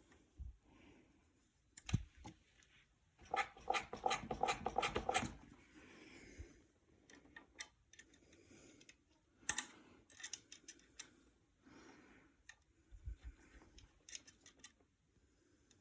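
Clunks and clicks from a Fox DHX rear shock on a bike as it is worked, with a quick run of knocks about three seconds in and a sharp single knock midway; the owner is unsure whether this clunk is normal.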